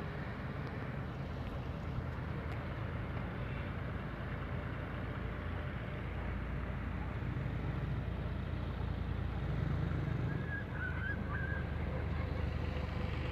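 Car engine and tyre noise heard from inside the car: a steady low rumble as the car turns around on the road. A faint, brief higher tone comes about ten seconds in.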